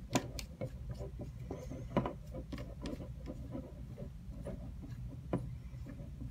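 Threaded bottom cap being screwed back onto the battery handle of a 3-axis smartphone stabilizer by hand: small irregular clicks and scrapes of the threads and fingers on the grip, with a few sharper clicks near the start, about two seconds in and about five seconds in.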